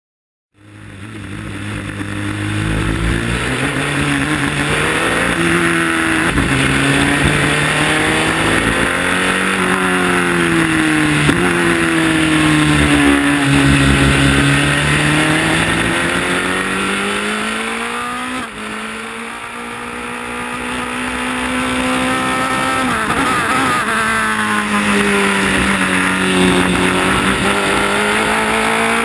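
Engine of a Toyota Racing Series single-seater race car heard onboard at racing speed, its revs repeatedly climbing and falling through the gears and corners. The revs drop suddenly about two-thirds of the way through, then build again.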